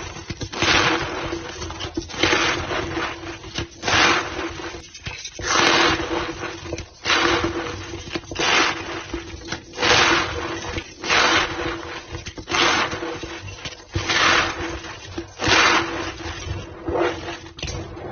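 A reformed block of white gym chalk being squeezed and crushed by hand, giving a squeaky, crunchy scrape about every one and a half seconds.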